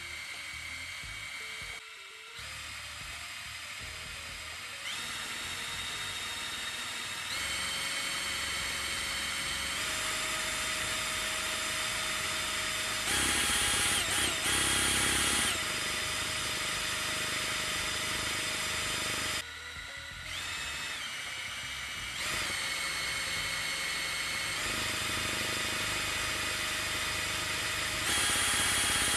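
Cordless drill spinning a homemade 3D-printed fluid coupler, its motor whine stepping up in pitch several times as the speed is raised and the coupler's torque rises. It dips briefly about two-thirds in and then climbs again to its highest near the end.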